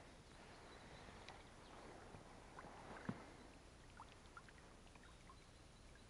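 Rowing boat moving quietly under oars: faint water sounds of the rowing, with a single knock about three seconds in and a few faint short ticks after it.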